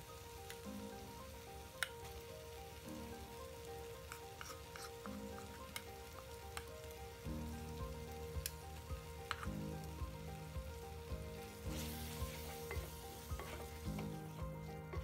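Onions and tomatoes sizzling as they fry in oil in a pot, with a wooden spatula scraping and tapping against the pot in scattered clicks as it stirs. Quiet instrumental music plays underneath.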